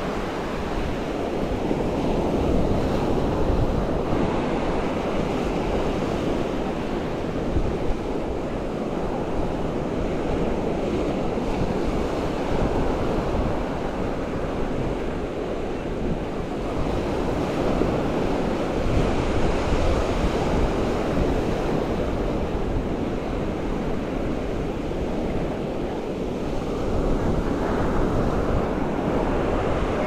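Ocean waves crashing and washing along the shore, driven by a strong wind, with wind rumbling on the microphone. The surf swells and eases gently throughout.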